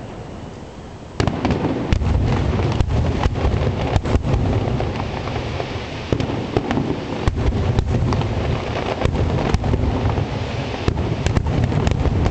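Aerial fireworks display: a new volley opens suddenly about a second in. Many sharp cracking reports follow over a continuous low booming rumble.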